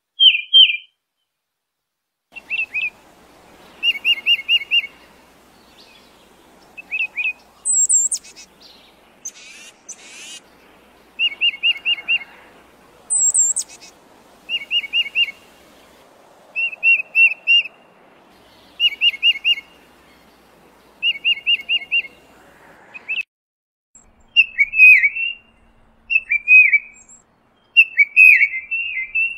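Tufted titmouse whistling short phrases of three or four quick, clear notes, repeated every second or two, with a couple of thin, very high notes in between.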